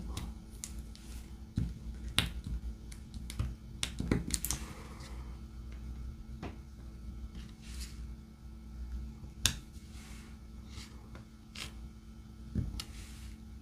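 Diamond-painting drill pen picking up drills and tapping them onto the sticky canvas: scattered light clicks and taps at irregular intervals, roughly one a second, over a faint steady hum.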